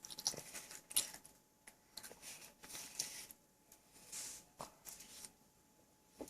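Soft, scattered rustles and small clicks, a few a second.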